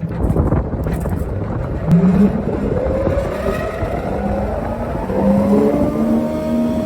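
Gomad GR 640 thickness planer with a four-knife cutterblock running, a steady mechanical rumble with a faint whine that rises slowly in pitch over the last few seconds.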